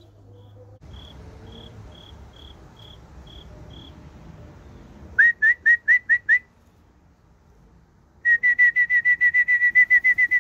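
A person whistling to call racing pigeons down to the loft. About five seconds in comes a burst of six short notes, each rising slightly at its start. Near the end comes a fast run of about sixteen quick notes that finishes in a falling slide.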